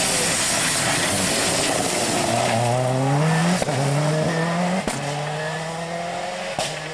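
Rally cars at full throttle on a special stage, engine notes climbing sharply in pitch several times, each climb broken off abruptly, over a loud hiss.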